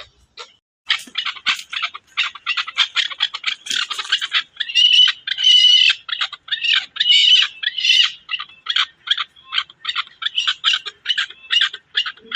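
Chukar partridge calling: a fast run of short clucking notes, several a second, beginning about a second in, with a few longer, louder notes in the middle.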